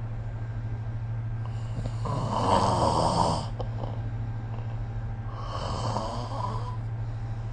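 A sleeping person snoring, two rasping snores about four seconds apart, the first one louder. A steady low hum runs underneath.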